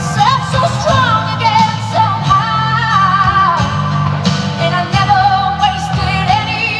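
Pop ballad playing with a singer's voice over steady accompaniment: the display's soundtrack music.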